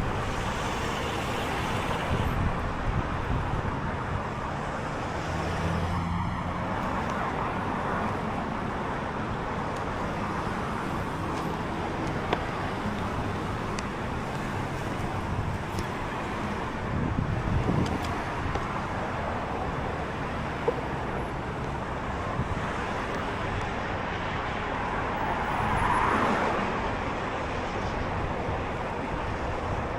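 City traffic noise: a steady rumble of cars on the road, with one passing vehicle swelling louder a little before the end.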